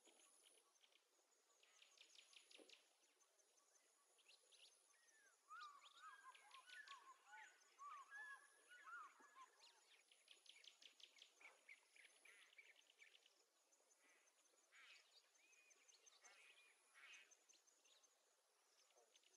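Faint birdsong from several birds: repeated quick high trills throughout, with a cluster of short, curving whistled notes from about five to ten seconds in.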